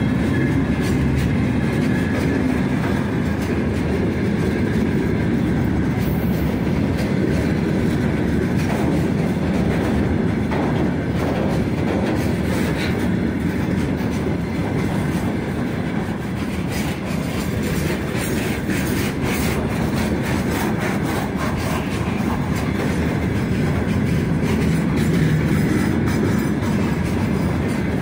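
Freight train of open gondola wagons rolling steadily past close by: a continuous heavy rumble of steel wheels on rail, with wheels clattering over rail joints, thickest around the middle.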